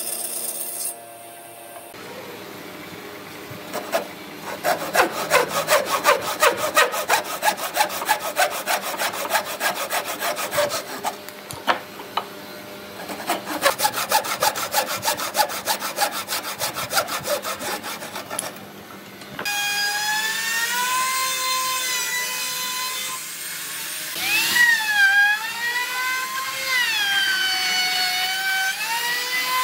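Wood being sawn with a long run of quick, even strokes, pausing briefly once. About two-thirds of the way through, a power tool starts with a steady whine; its pitch dips and recovers a few times.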